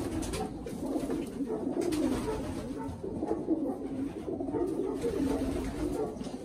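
Many domestic pigeons cooing at once in a loft, a continuous overlapping burble of coos.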